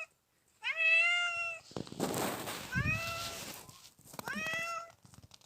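Domestic cat meowing three times in a row, each meow rising at the start and then held briefly, answering a person who is talking to it. A noisy rustle sounds between the first and second meow.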